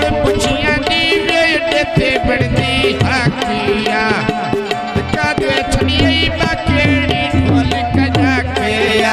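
Punjabi folk music (goon mahiye): a hand drum keeps a quick rhythm under a melodic line with wavering, ornamented notes.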